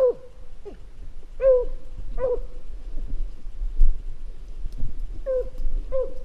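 A dog barking on a rabbit chase: short, high yelps, each dropping in pitch, four in quick succession at the start, a pause of about three seconds, then two more near the end.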